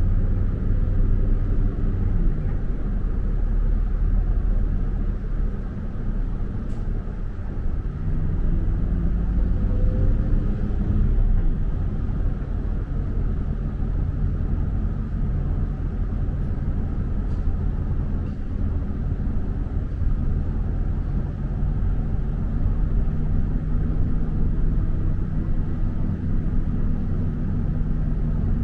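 Motor vehicle engine and road rumble, the engine's pitch falling near the start, rising and falling again about ten seconds in, then holding steady near the end as the vehicle changes speed.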